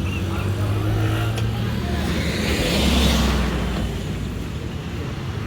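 A motor vehicle drives past on the street, its engine hum and tyre noise swelling to a peak about three seconds in, then fading.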